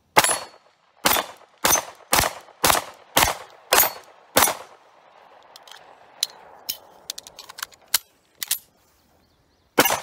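Star Model BM 9mm pistol firing eight shots in quick succession, about two a second. After a few seconds of faint clicks, it fires one more shot near the end.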